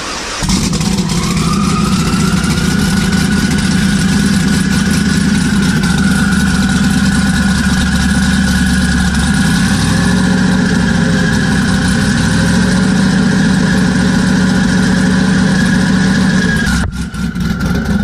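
Twin-turbo Corvette V8 held on the two-step launch-control rev limiter at about 4,500 rpm, running loud and steady with a rapid crackle and a steady whine above it while building about 6 pounds of boost. The sound breaks briefly near the end, then the engine carries on.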